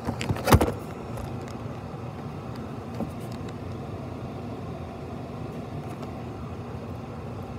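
GE AJCQ mini PTAC air conditioner running with a steady hum, with a couple of short knocks about half a second in.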